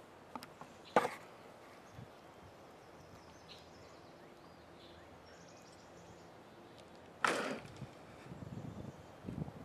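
Two sharp cracks about six seconds apart, the second the louder, with a few fainter clicks between them and a low rustle near the end.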